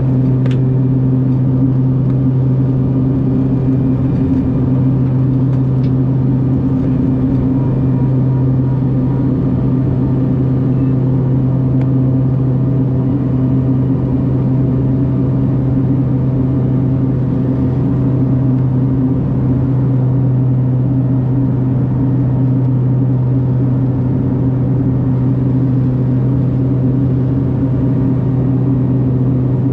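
Cabin sound of a BAe Jetstream 41's Garrett TPE331 turboprops running at a steady power setting: a constant low propeller drone with a second, higher hum over a rush of engine and air noise.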